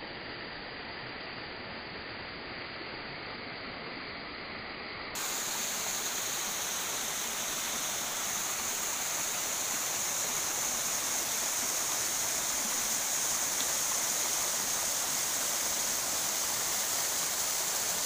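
Small waterfall and stream: a steady rush of falling water. The sound jumps louder and brighter about five seconds in.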